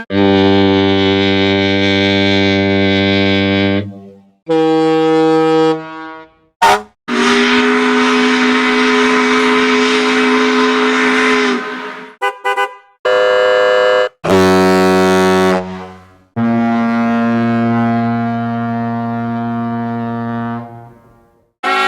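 A run of separate horn blasts, one after another. First a foghorn of about four seconds, then a shorter ship horn and a brief fire-engine toot. Then a steam horn of about five seconds with a lot of hiss, three quick beeps, an ambulance horn and a power horn, and finally a ship foghorn of about five seconds with a low, steady pitch.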